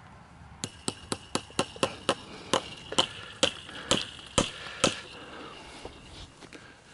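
Hand hammer striking about a dozen times at a wooden fence post to fix barbed wire, each blow with a short metallic ring. The blows come quickly at first, slow down, and stop about five seconds in.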